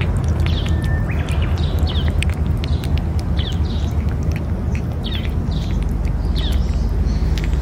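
A cat eating wet food from a metal dish, with small wet clicks of chewing and licking, while birds chirp in short repeated calls about once a second. A steady low rumble runs underneath.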